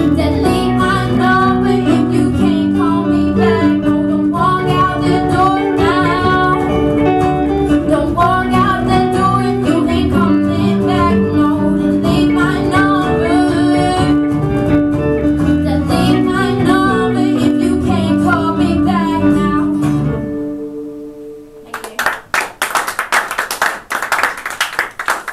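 Live pop-rock band: a female lead singer over acoustic guitar, electric guitars and bass guitar, with the song ending about 20 seconds in. A few seconds of clapping follow near the end.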